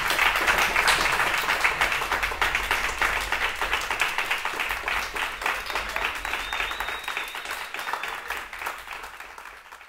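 A small audience applauding, the clapping dense at first and thinning out toward the end.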